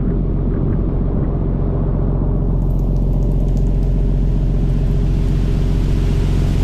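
Fishing boat's engine running with a steady low drone, along with rushing water and spray along the hull.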